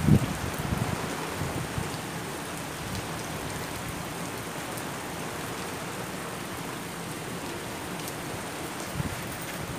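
Heavy rain pouring down during a storm, a steady even hiss, with brief low rumbles right at the start and again near the end.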